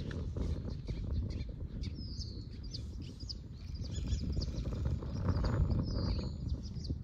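Birds chirping, with short falling whistled calls about two seconds in and again near six seconds, over a steady low rumble.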